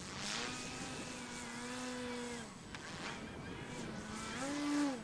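FMS Olympus RC pattern plane's electric motor and propeller, throttled up and down during 3D flying, so the whine repeatedly rises and falls in pitch. The biggest surge comes near the end, rising and then dropping away.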